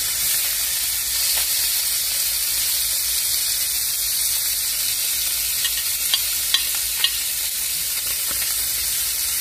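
Fish fillets sizzling steadily in hot fat in a cast iron pan, with three sharp clicks of a metal spatula against the pan about six to seven seconds in.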